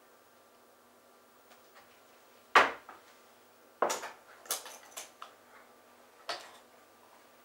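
Kitchen handling of a small metal sugar canister: one sharp knock about two and a half seconds in, then a run of clattering metal clinks and knocks as the canister is set on the counter and its lid taken off, with one more knock near the end.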